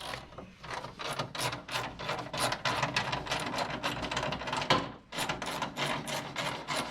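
Hand socket ratchet clicking rapidly as a bolt is wound in or out, with a brief pause about five seconds in.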